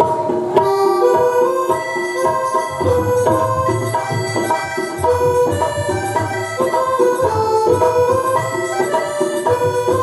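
Instrumental interlude of a devotional bhajan: a harmonium plays the reedy melody in short held notes, with low bass notes underneath.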